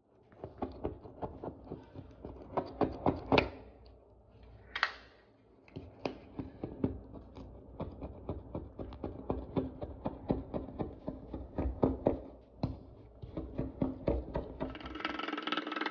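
Razor-blade scraper scraping dried paint off window glass: irregular scratchy strokes and sharp clicks, with a run of louder ones about three seconds in.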